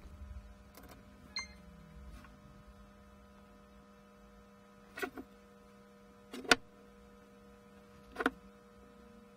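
Light handling of an IC lead setting tool: about five short, sharp clicks and taps as the chip and the steel ball bearings on its aluminium block are set by hand, the loudest about six and a half seconds in. A steady electrical hum runs underneath.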